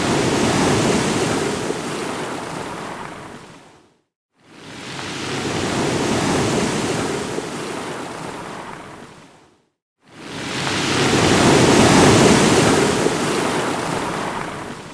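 An ocean wave crashing and washing, heard three times over: each one swells up and fades away over about five seconds, with a brief silence between them.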